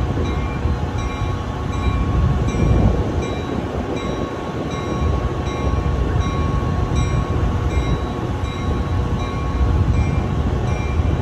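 Stationary Metra commuter train with its EMD F40PHM-3 diesel locomotive running: a steady low rumble and hum, with short high ringing tones repeating on and off.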